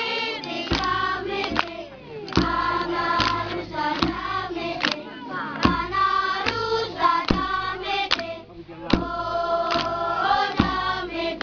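A group of women singing a traditional dance song together, with sharp beats struck about once every 0.8 s. The singing pauses briefly twice.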